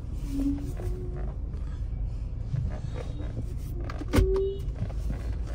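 Chevrolet Cruze running, heard from inside the cabin as a steady low engine and road rumble. A sharp click about four seconds in is followed by a brief tone.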